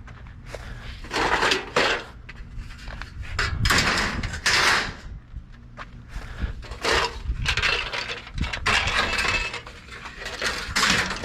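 Metal scrap being handled and stacked: irregular clanking, rattling and scraping of metal pieces knocking together, over a low steady hum.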